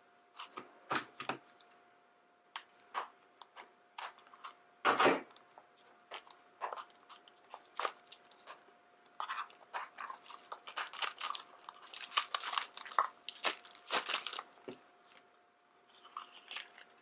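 A blind bag's packaging being handled and torn open: irregular crinkling and crackling, with one louder rustle about five seconds in and a dense stretch of crackling in the second half.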